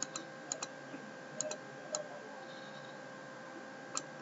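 Computer mouse clicking as brush strokes are painted: a few quick, irregular clicks in the first two seconds, a pause, then another click near the end, over a faint steady hum.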